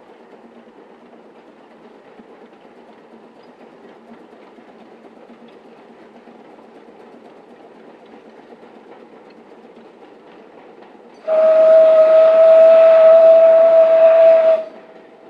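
Narrow-gauge steam locomotive working a train in the distance, faint and steady. About eleven seconds in it gives one long whistle blast, a single steady note held for about three seconds before cutting off.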